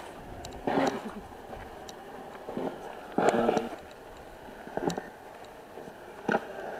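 Short, scattered snatches of voice, each under a second long, with faint clicks in between.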